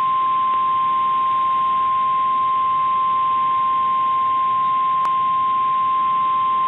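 NOAA Weather Radio 1050 Hz warning alarm tone: a single loud, steady high-pitched tone over light radio hiss, with a faint click about five seconds in. It signals that an emergency alert message, here a tornado watch, is about to follow.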